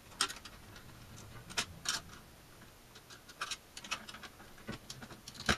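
Scattered small clicks and taps of a screwdriver and the metal chassis parts of an RF signal generator being worked together into a tight fit. They come irregularly, with the sharpest click near the end.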